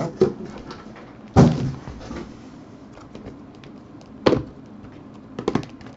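Two solid thuds, about a second and a half in and again past four seconds, as sealed trading-card boxes are lifted out of a cardboard shipping case and set down on a table. Lighter taps and clicks of the boxes being handled come in between and near the end.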